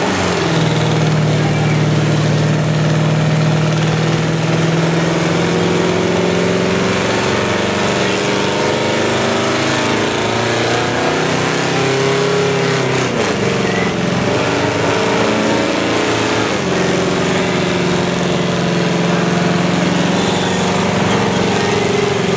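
A 1969 Dodge Coronet's engine is held at high, steady revs during a burnout, with the rear tyres spinning and smoking on wet tarmac. The revs dip and waver about halfway through, then climb back and hold steady again.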